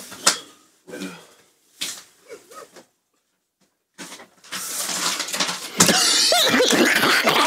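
Playing cards slapped and turned over on a tabletop, then, after a short silent gap, a burst of stifled laughter, gasps and squeals from a small group, rising in the last few seconds.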